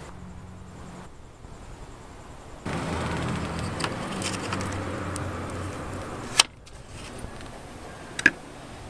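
Plastic handling noise as a spill-free coolant funnel's adapter and funnel are fitted onto a car radiator's filler neck: rustling and scraping, with two sharp clicks about six and eight seconds in.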